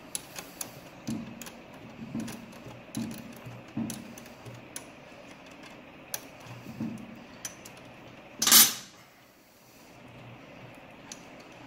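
Hand tools and metal parts clicking, clinking and knocking lightly as the kick-start lever and linkage are fitted to a motorcycle's gearbox cover, with one short, loud burst of noise about eight and a half seconds in.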